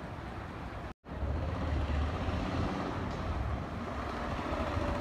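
City street ambience with the steady hum of traffic. The sound drops out for an instant about a second in, then comes back louder with a low rumble.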